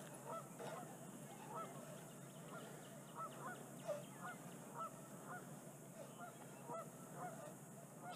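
Faint bird calls across the water: short, repeated notes coming about one or two a second.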